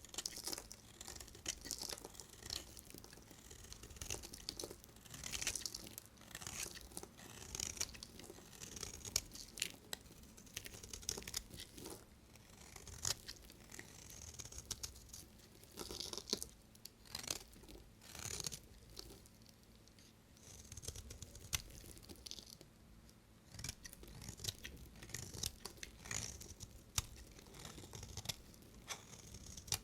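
A knife cutting through bars of dry soap: a steady run of crisp scraping, crunching cuts with many small sharp clicks.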